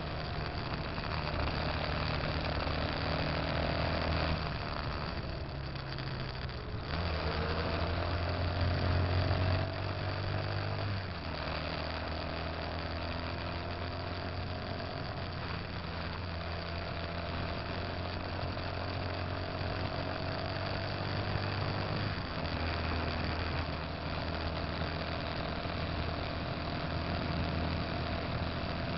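Motorcycle engine running on the move, its pitch slowly rising and dropping back a few times with throttle and gear changes, over steady wind and road noise.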